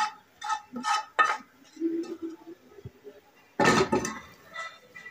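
Wooden spoon knocking and scraping against a coated frying pan as food is emptied out of it: several sharp knocks with a slight ring in the first second and a half, then one louder clatter about three and a half seconds in as the pan is set down.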